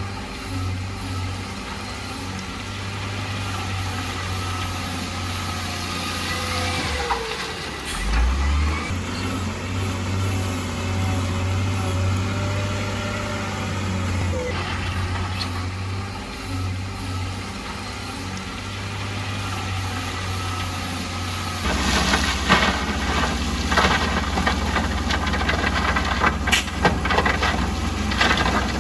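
Heavy construction machinery engines running steadily, with a pitch that slides up and down briefly about a quarter of the way in. About three-quarters of the way through, rattling and clanking knocks join in and the sound grows louder.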